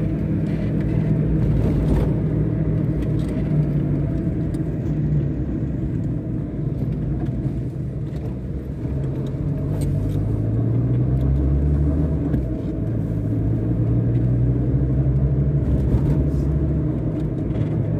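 Car engine and road noise heard from inside the cabin while driving, a steady low hum whose engine note rises and falls a few times with speed.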